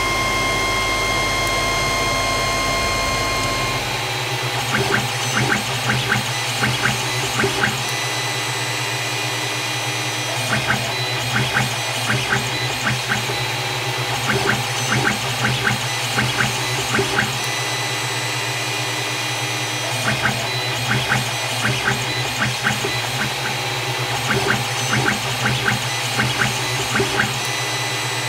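Creality Ender 3 Pro 3D printer running a print: a steady hum and whine of fans and motors. From about four seconds in, clusters of quick ticks and buzzes from the stepper motors come over it as the print head makes short moves.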